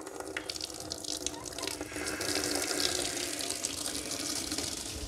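Water running hard from an open tap, a steady hiss that grows louder about two seconds in, with a faint steady hum under it.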